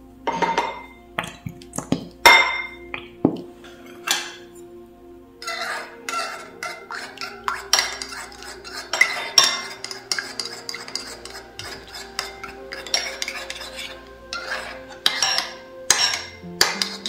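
Metal spoon stirring a watery slime mixture in a bowl, clinking and scraping against the sides: a few separate clinks in the first seconds, then steady stirring from about five seconds in. Soft background music underneath.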